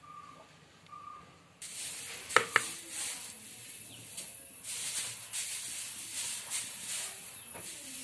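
Hot cooking oil in a frying pan hissing and crackling as it heats, starting suddenly about a second and a half in, with scattered sharp pops over a steady hiss.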